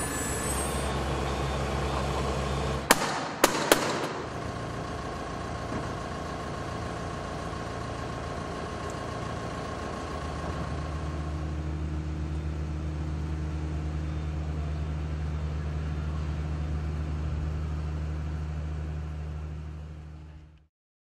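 An engine running steadily, with three sharp knocks about three to four seconds in. Its pitch shifts slightly about ten seconds in, and the sound fades out near the end.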